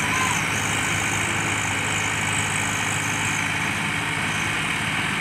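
Diesel engines of two tractors, a Mahindra and a Swaraj, running steadily under heavy load as they pull against each other through their hitched trolleys.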